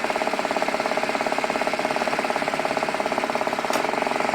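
Tomy Turnin' Turbo Dashboard toy running in first gear: its motor whirs steadily with a fast, even clatter. There is a single light click a little under four seconds in.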